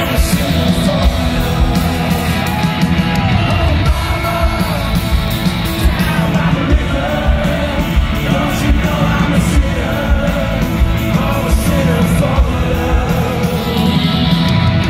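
Rock band playing live, loud and bass-heavy: male vocals over guitars and drums in a large concert hall.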